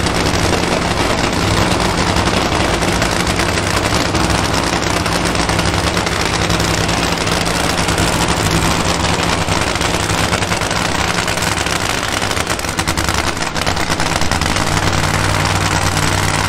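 Supercharged nitromethane-burning drag-racing engine idling, a fast crackling rattle that holds steady.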